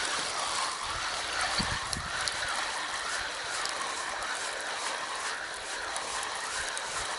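Steady outdoor background noise: an even hiss with a faint wavering chorus running through it and a few faint high ticks.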